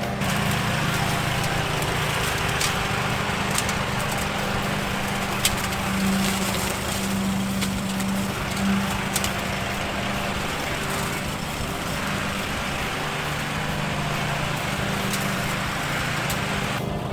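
Lawn mower engine running steadily, with a few sharp ticks scattered through.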